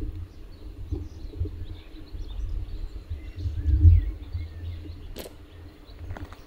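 Small birds chirping and calling all around, over an uneven low rumble on the microphone that swells twice, with one sharp click about five seconds in.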